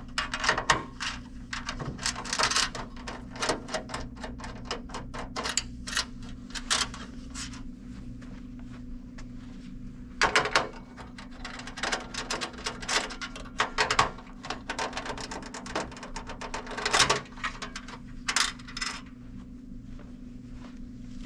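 Nut driver working the nuts off the gear motor bracket of a Broan 28000 downdraft range hood: irregular metal clicks and clinks from the driver, nuts and sheet-metal housing, louder at times, over a steady low hum.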